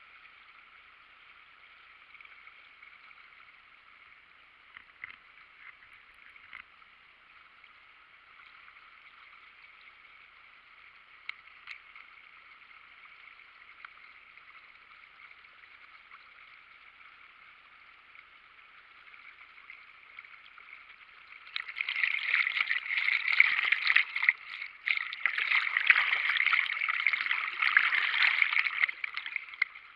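Water rushing steadily over a waterfall on the Isar river, faint and thin, with a few light ticks. About three quarters of the way through, the rushing swells much louder for several seconds, then drops back.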